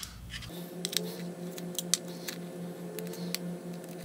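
A 3 mm hex screwdriver turning a barrel locking screw out of an FX Crown air rifle's action, with scattered small clicks as the tool works the screw and the action is handled.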